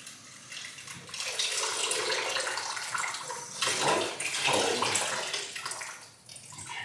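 Water running from a freestanding tub filler's spout into a plastic bucket that already holds some water, a steady splashing pour that fades out near the end as the tap is shut off.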